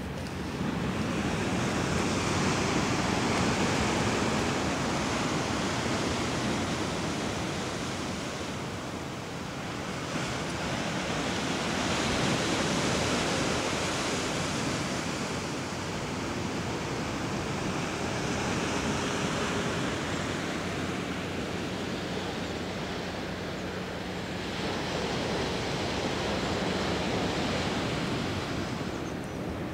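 Ocean surf breaking on the shore, a steady wash of noise that swells and eases about four times as the waves roll in.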